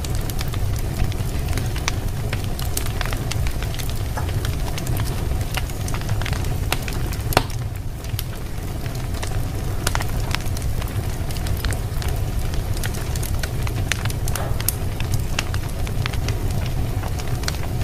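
Fireplace fire crackling: many scattered sharp pops over a steady low rumble, with one louder pop about seven seconds in.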